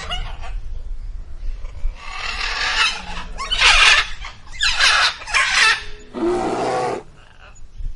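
Harsh, noisy animal calls in a run of about five short bursts, the last one lower and more pitched, followed by a brief lull near the end.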